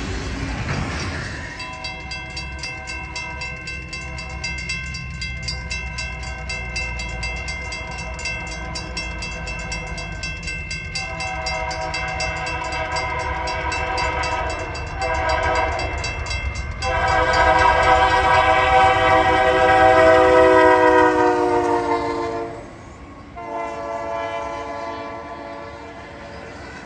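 A freight locomotive's multi-tone air horn sounding a long series of blasts as the train approaches, growing loud and falling in pitch as the locomotive passes, then one more shorter blast near the end. Train wheels rumble and clack underneath.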